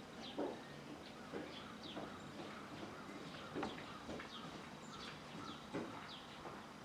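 Small birds chirping over and over in short falling calls, with about five brief, sharp sounds standing out louder at irregular intervals.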